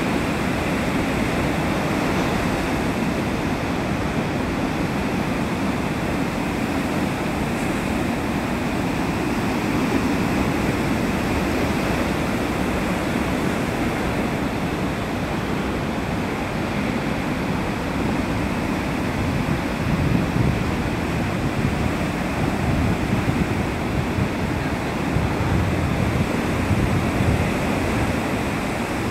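Heavy surf breaking and washing up a sandy beach, a steady rushing roar, with wind buffeting the microphone in low gusts about two-thirds of the way in and again near the end.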